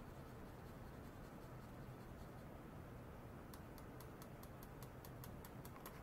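Near silence: room tone with a faint steady low hum, and in the last two and a half seconds a run of faint, evenly spaced ticks, about six a second.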